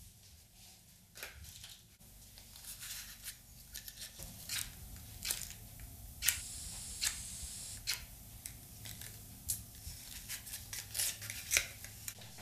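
Repeated sharp clicks and short scrapes of a small object being worked in the hands, with a brief high hiss about six seconds in.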